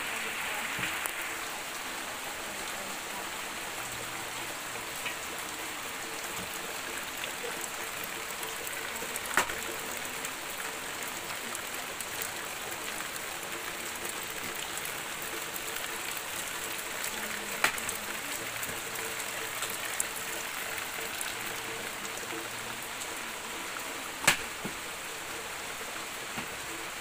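Steady rain falling on dense tropical foliage: an even, continuous hiss. Three sharp taps stand out from it, about 9, 18 and 24 seconds in, the last the loudest.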